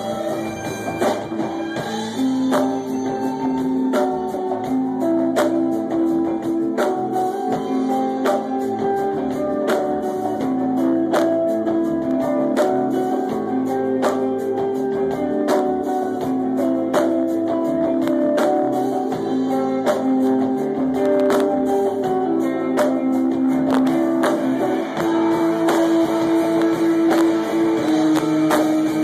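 Live band playing: electric guitars and keyboards over drums keeping a steady beat.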